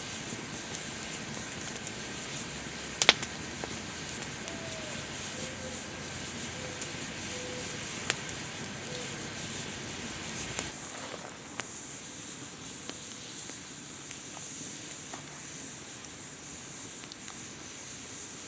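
Wood campfire crackling steadily, with two loud sharp pops, one about three seconds in and one near eight seconds. It is a little quieter from about eleven seconds in.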